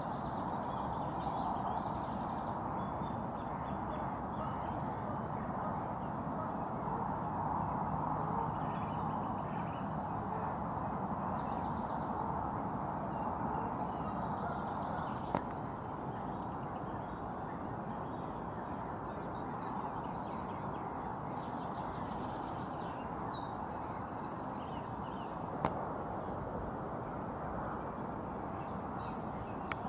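Small birds chirping and trilling in short high phrases over a steady background hiss, with two sharp clicks, one about halfway through and one near the end.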